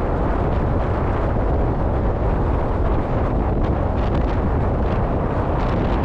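Strong sea wind buffeting the microphone in a steady low rumble, mixed with rough waves washing against a rocky seawall.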